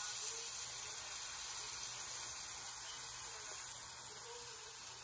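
Banana-and-egg pancake batter sizzling in a lightly oiled pan: a steady, soft hiss.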